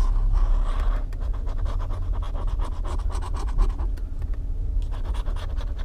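A scratch-off lottery ticket being scratched in quick, rapid rasping strokes that fade somewhat near the end, over the steady low hum of the car's cabin.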